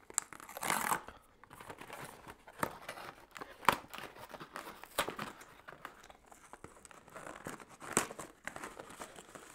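Coffee capsule packaging being handled: irregular crinkling and rustling with scattered sharp clicks and taps as a Caffè Crema capsule is taken out.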